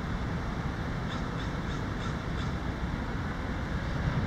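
A bird gives about five short calls in quick succession, roughly a third of a second apart, over a steady low rumble.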